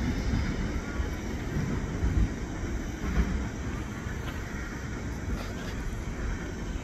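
Freight train's cars rolling away on the rails, a low, steady rumble of wheels that grows fainter as the train recedes.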